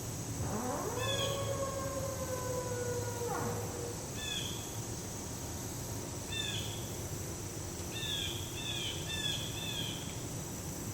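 An unidentified call: a tone that rises sharply about half a second in, is held for about three seconds and then drops away, followed by short, high downward chirps repeated singly and in quick runs. Steady high insect trilling underneath throughout.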